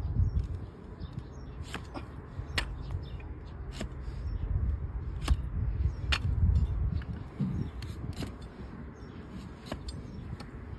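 A trimming blade cutting and paring an overgrown donkey hoof: scattered sharp clicks and cracks, roughly one every second or two, over a low, steady rumble.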